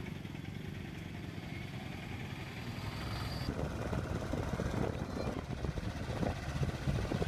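Motorcycle engine running while the bike is ridden, getting a little louder about halfway through.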